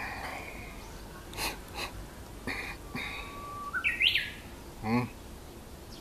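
Japanese bush warbler (uguisu) singing its 'hoo-hokekyo' song once: a long, steady whistled note, then a quick rising flourish that ends in a high, falling note. A short wavering call follows about a second later.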